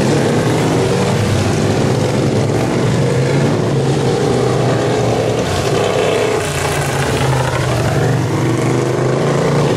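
Engines of several racing riding lawn mowers running together as the mowers circle the track. One engine note rises about seven seconds in.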